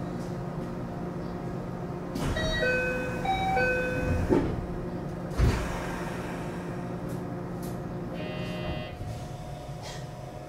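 A 521 series electric train standing at a platform hums steadily. About two seconds in, a short chime of alternating notes sounds, then two thumps follow as the sliding doors close.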